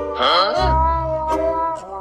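A kitten gives a single meow, rising then falling in pitch, about a quarter-second in. It is heard over background music with steady held tones and bass.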